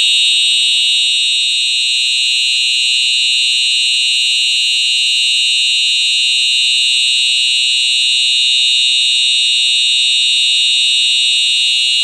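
Simplex 4903-9426 TrueAlert fire alarm horn sounding a loud, steady, unbroken tone.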